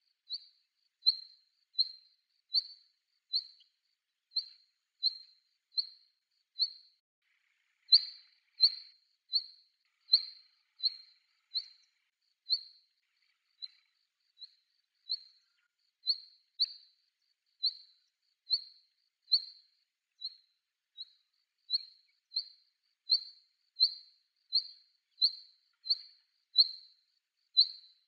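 Female black redstart calling: a steady series of short, high single call notes, a little more than one a second, with a few softer notes in the middle.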